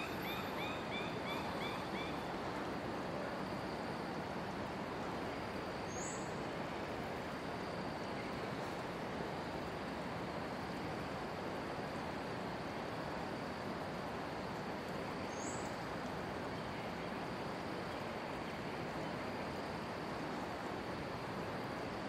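Mountain forest ambience: a steady hiss with a faint continuous high drone. Birds call over it, with a quick run of about seven short notes in the first two seconds and two brief high chirps, one about six seconds in and one near fifteen seconds.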